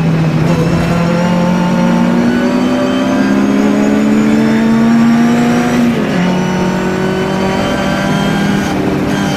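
Mark 1 Ford Cortina race car's four-cylinder engine heard from inside the cabin, pulling hard with its pitch climbing slowly; about six seconds in the pitch drops abruptly, then holds nearly steady.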